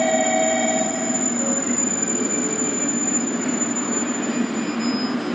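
Train running along the platform: a steady rumble of wheels and running gear, with thin whining tones that mostly fade about a second in.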